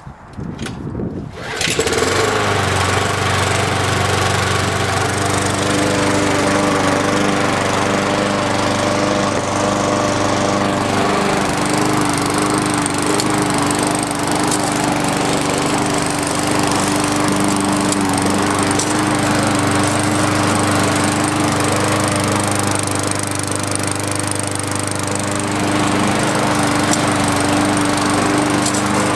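MTD Pro lawn mower's small engine being pull-started: a few short pulls, then it catches about a second and a half in and runs steadily at a constant speed.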